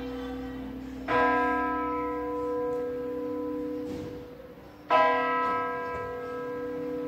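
Church bells of a five-bell ring tuned in B, rung in a concert: two loud strokes about four seconds apart, each leaving a long ringing tone that fades over a deep hum that carries on between them.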